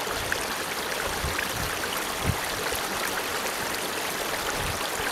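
Water of a small stream running steadily between snow banks.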